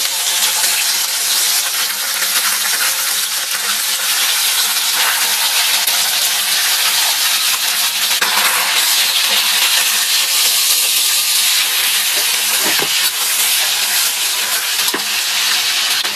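Food frying in hot oil, a steady sizzle with a few light knocks, about a second apart around twelve to fifteen seconds in.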